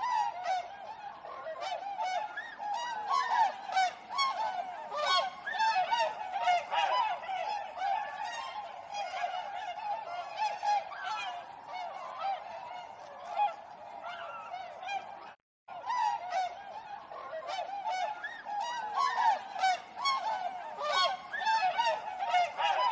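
Flock of swans honking, many overlapping calls in a dense chorus, with a momentary break about two-thirds of the way through.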